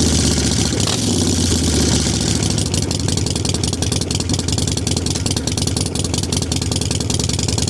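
Harley-Davidson Nightster's 1200 cc air-cooled V-twin running through Magnaflow exhaust pipes. It drops back from a slightly raised speed about two seconds in and settles into a steady idle with a fast, even exhaust pulse.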